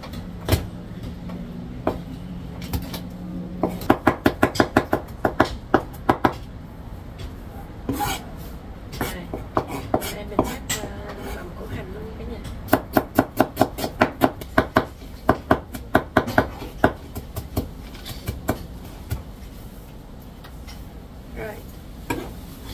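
Kitchen knife mincing garlic on a plastic cutting board: quick runs of sharp knocks, about five a second, in several bursts with pauses and single chops between them.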